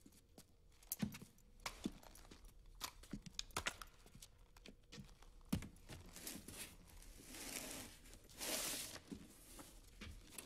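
Scattered quiet clicks and knocks of guns and gear being handled, then two longer stretches of rustling, about six and eight seconds in.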